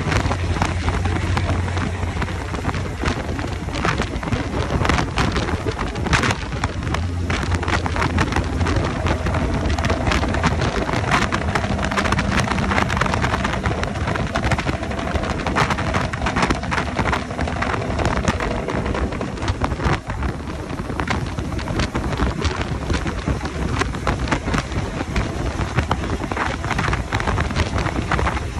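Semi truck running down a wet highway: rushing wind and road spray with crackly buffeting on the microphone, over the low, steady drone of the straight-piped Cat C15 diesel.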